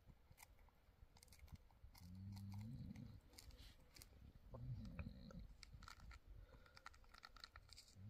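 Near silence: faint scattered clicks and crackles, with a faint low voice twice.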